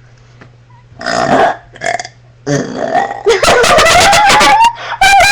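A girl's deliberate, forced burps: two short burps about a second in, then one long, loud, raspy burp whose pitch rises slowly over about two seconds, with another short burst near the end.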